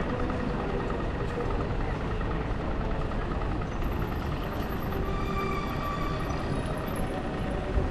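City street ambience: a steady wash of vehicle traffic noise, with a faint steady hum rising out of it for a second or so near the middle.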